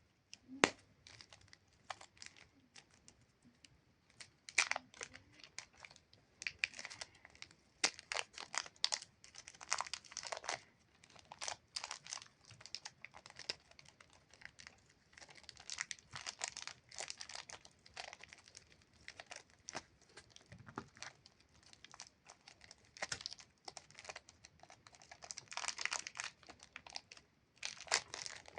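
Plastic wrappers of super clay packs crinkling and tearing as they are unwrapped by hand: irregular crackles and rustles with short pauses between them.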